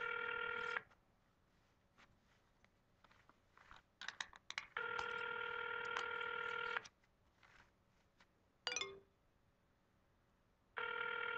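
Telephone ringback tone of an outgoing call ringing unanswered: two-second rings, one every six seconds. Between the rings there are a few faint clicks and one short falling beep.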